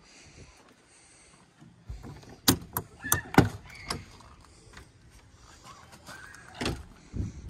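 Travel trailer's entry door being unlatched and pulled open: a cluster of sharp clicks and knocks about two to four seconds in, then another knock near the end.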